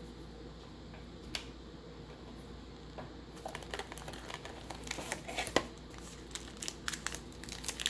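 Baseball card pack wrapper being handled and crinkled: a single click early, then a growing run of crackles from about three and a half seconds in.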